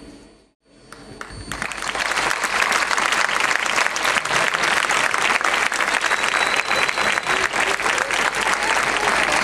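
Crowd applauding: after a brief hush at the start, a dense clapping builds up about a second and a half in and then holds steady.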